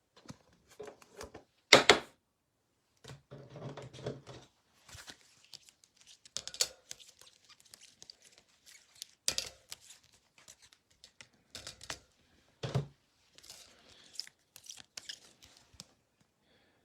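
A trading-card hanger box and its packaging being torn open and handled: irregular tearing and crinkling, with a few sharp, louder rips.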